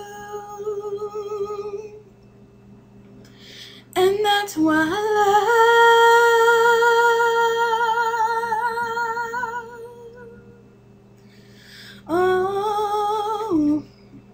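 Closing bars of a love song: a female voice holds two long notes with vibrato, the first from about four seconds in, the second a little before the end, where it stops.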